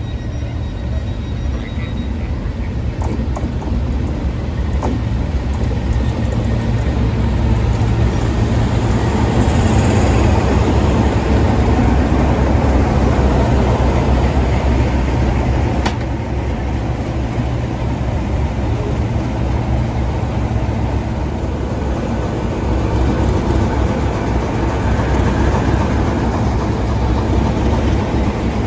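Class 37 diesel locomotives drawing slowly into the platform. Their English Electric engines run with a deep, steady rumble that grows louder as the locomotives come alongside and eases about halfway through.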